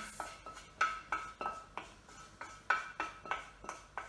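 A utensil scraping and tapping melted nut-butter caramel out of a small metal saucepan, about three strokes a second, each stroke setting the pan ringing.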